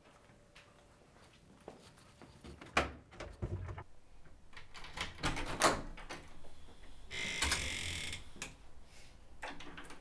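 A wooden front door being opened: several knocks and clicks, then a brief scraping rush about seven seconds in.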